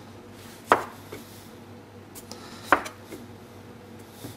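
Brioche dough being cut and handled on a wooden worktop: two sharp knocks about two seconds apart, each followed by a lighter tap.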